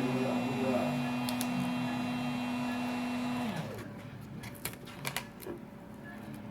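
A steady low hum that slides down in pitch and stops about three and a half seconds in, followed by scattered light clicks and taps of small parts and tools being handled on a phone under repair.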